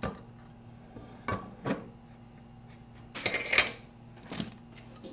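Metal clinks and knocks as a steel mower axle is set into a cast-iron bench vise and the vise is screwed tight on it. There are a few separate knocks, and a short louder clatter of metal on metal about three and a half seconds in.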